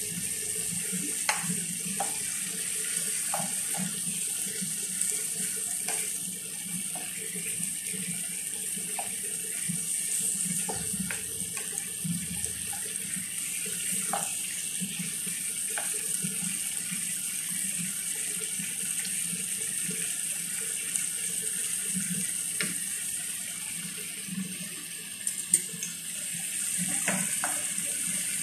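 Shrimp and onions sizzling in sauce in a nonstick frying pan, a steady hiss. A wooden spoon knocks and scrapes against the pan now and then as it is stirred.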